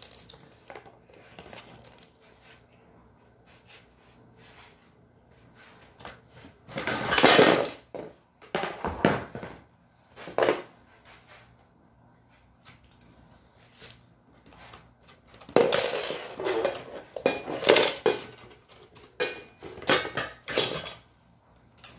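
Metal frame bars of a hoverboard go-kart seat attachment clanking and clinking against each other and a wooden floor as they are set out. The knocks come in scattered clusters with quiet gaps, one group a third of the way in and a busier run in the last third.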